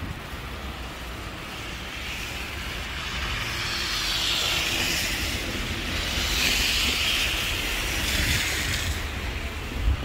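Cars driving along a snow-covered street, their tyres hissing through the snow and slush, with two passes swelling about four and seven seconds in over a steady low rumble.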